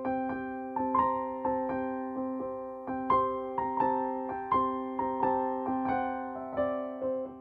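Gentle piano-like keyboard music: a slow tune of separate notes, about two a second, each one ringing and fading. At the very end the playing stops and the last notes die away.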